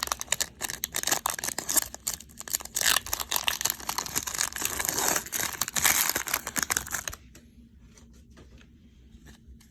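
A trading-card pack wrapper being torn open and crinkled, stopping about seven seconds in, followed by a few faint clicks.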